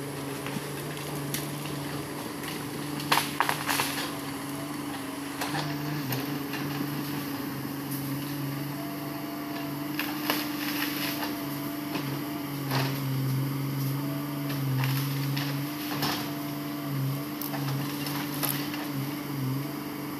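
Hitachi Zaxis hydraulic excavator's diesel engine running steadily as the machine works, its pitch wavering slightly under load. Sharp knocks come at intervals, the loudest about three seconds in.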